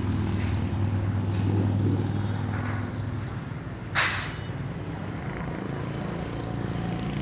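Truck engine running steadily with a low hum, easing off after about three seconds, with a short, sharp burst of hissing air about four seconds in.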